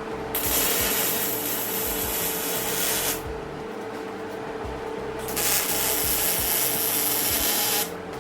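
A power tool grinding or sanding metal in two passes of harsh hissing noise, each about three seconds long, with a steady hum running between and under them.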